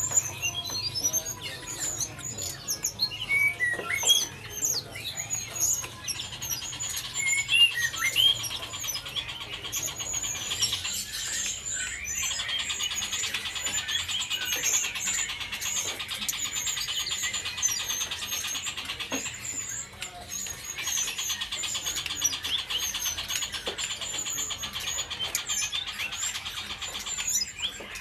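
Several caged songbirds chirping and singing at once: short high chirps all through, with a long, rapid trilling song that runs on for much of the second half.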